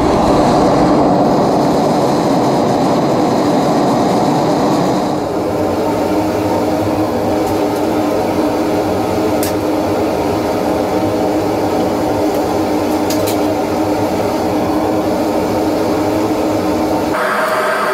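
Two-burner propane forge running steadily: a constant rushing burner noise with a low hum, and two faint metallic ticks partway through.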